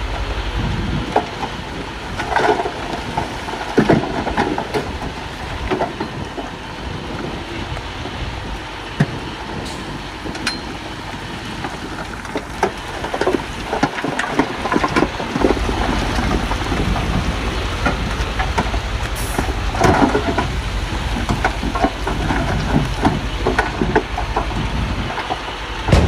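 Heavy earthmoving machinery at work on a stone road bed: a deep diesel engine rumble that strengthens about halfway through, with irregular clanks and knocks of metal and stone throughout.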